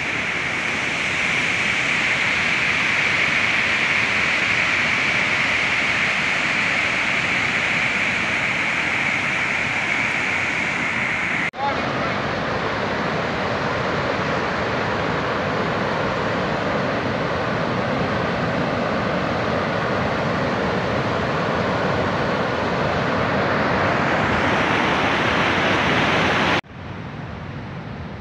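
Muddy floodwater and debris rushing across a mountain road: a loud, steady rush of water. It breaks off abruptly about eleven seconds in and again near the end, where it comes back much quieter.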